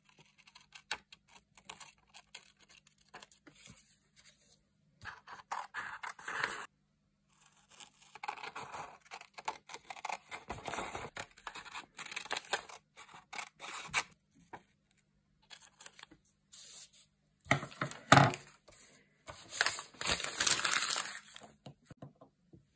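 Scissors cutting paper: irregular bursts of snipping and paper rustling with short pauses between, and one sharper knock about three-quarters of the way through, followed by denser rustling.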